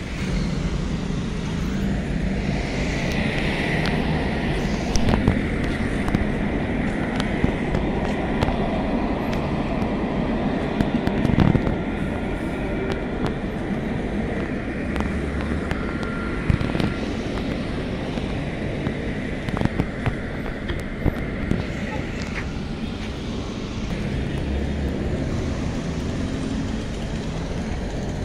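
Street noise beside tram tracks: a tram running by with a steady high whine that fades out near the end, over a low traffic rumble with voices and scattered knocks.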